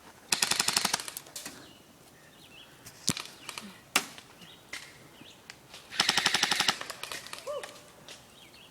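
Airsoft electric rifle firing two short full-auto bursts about six seconds apart, a rapid rattle of shots, with two single sharp cracks in between.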